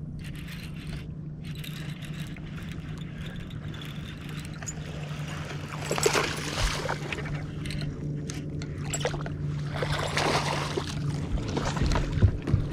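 A hooked bass thrashing and splashing at the water's surface beside a boat, first about six seconds in and again several times in the second half, over a steady low hum.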